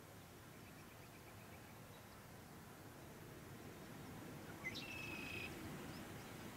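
Faint outdoor ambience with a songbird calling: a soft run of short chirps about a second in, then one clear whistled note held for nearly a second, starting with a quick upward slide, about two-thirds of the way through. A low rumble swells underneath in the second half.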